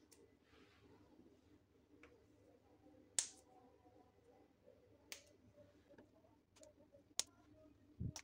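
Fresh green beans having their tips snapped off by hand: a few short, crisp snaps a second or two apart, the loudest about three seconds in, over a quiet room.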